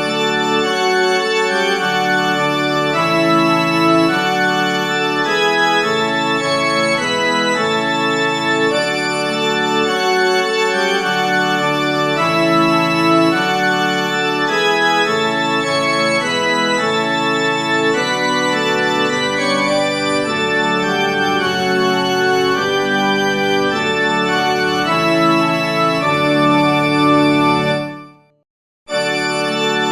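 Organ playing slow, sustained chords that change every second or so. It breaks off to silence for about a second near the end, then resumes.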